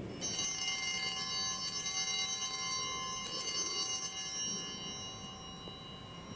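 Altar bell struck once at the elevation of the chalice after the consecration. Its many high tones ring on and fade slowly over several seconds.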